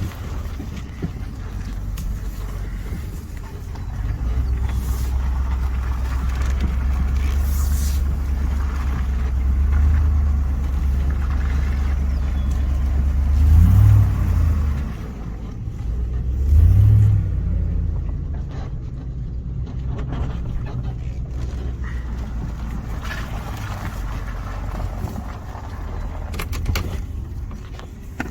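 A vehicle engine running steadily at low speed. About halfway through, it revs up and back down twice in quick succession.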